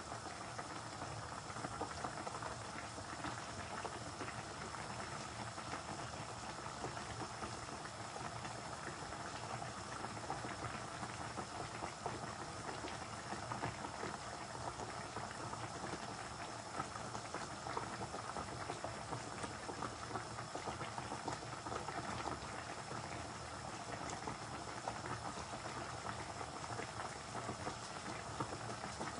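Fish curry simmering in a pan on the stove, its gravy bubbling and popping steadily.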